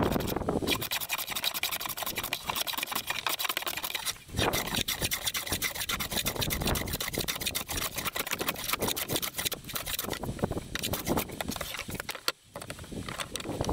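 Metal hand plane shaving along a wooden table leg: repeated rasping strokes of the blade cutting shavings, with a brief pause about four seconds in and another near the end when the plane is set down.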